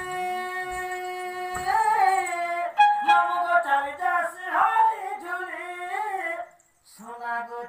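A woman singing a Sambalpuri folk song with a wavering, ornamented melody. It begins after a steady held tone that ends about one and a half seconds in. The singing breaks off briefly near the end, and then a lower voice starts.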